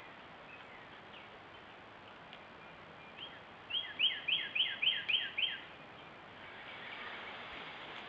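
A bird singing a quick run of about seven clear down-slurred whistled notes, about four a second, over a steady faint hiss.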